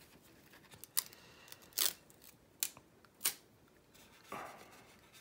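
Four short, sharp clicks, under a second apart, then a soft rustle near the end, from hands handling a plastic model kit and foam masking pieces on a workbench.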